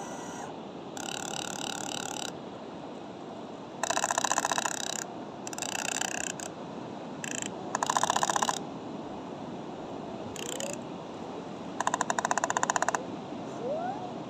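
Repeated trilling animal calls, each about a second long and coming every few seconds, over a steady hiss.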